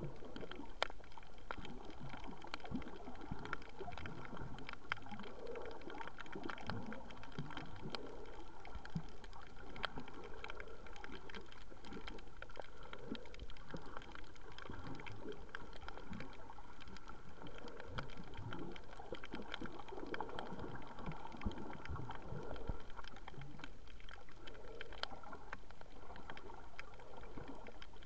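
Water heard through a submerged camera: muffled gurgling and sloshing, with frequent small clicks throughout.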